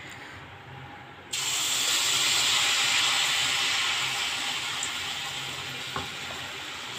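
Rice-flour pitha batter poured from a ladle into hot oil in an aluminium kadai, the oil sizzling loudly. The sizzle starts suddenly about a second in and slowly fades.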